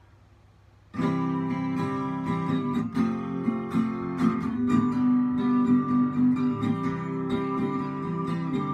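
Acoustic guitar strummed in a steady rhythm, starting about a second in: the instrumental intro of a song, before any singing.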